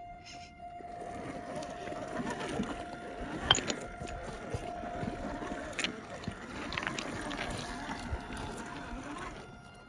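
Electric motor and drivetrain of a 1/10 scale Axial SCX10 II RC rock crawler whining steadily as it crawls over rocks. Scattered clicks and knocks of stones under the tyres come through, the sharpest about three and a half seconds in.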